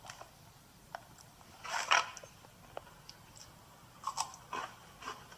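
A person chewing sweet potato chips, with irregular crunches. The loudest cluster comes about two seconds in and another about four seconds in.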